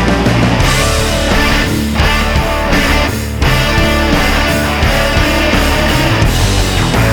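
Heavy metal background music with distorted electric guitars and a driving beat.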